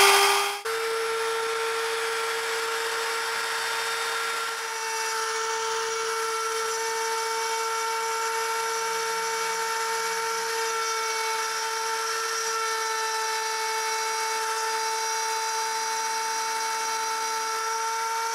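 CNC router spindle on an AxisCreat 3030 running with a steady high whine as its bit engraves into hard maple.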